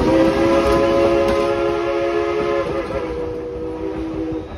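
Dollywood Express steam locomotive's chime whistle sounding one long, steady chord that wavers briefly about two and a half seconds in and cuts off near the end, while the open passenger cars rumble past.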